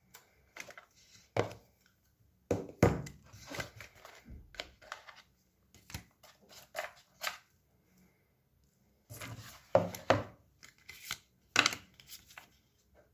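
Hands handling an iPhone box and its packaging: irregular taps, knocks, scrapes and rustles, with a few sharper knocks spread through.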